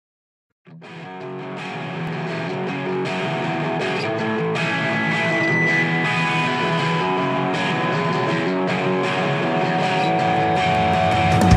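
Background music: held, layered guitar chords fading in from silence less than a second in and swelling steadily louder.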